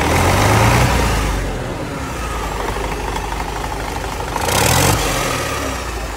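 Used truck diesel engine running on a test stand through an open exhaust hose, with a steady low drone. It revs up briefly in the first second and again about four and a half seconds in.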